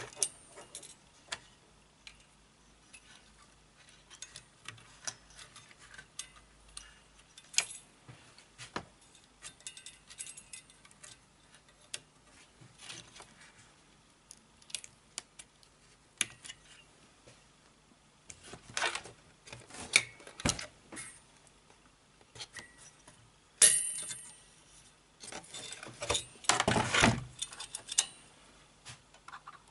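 A CPU fan-heatsink cooler being handled and seated on a motherboard's processor socket: scattered small clicks and clinks of metal and plastic, with busier bursts of rattling about two-thirds of the way in and again near the end.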